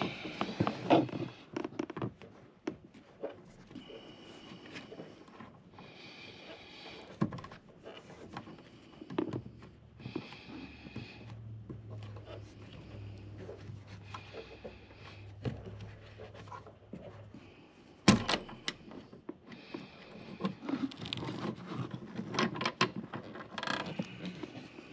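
Hand tools prying and scraping at a car's wiper arm mounting block, with scattered clicks, scrapes and knocks. A sharp knock comes about eighteen seconds in.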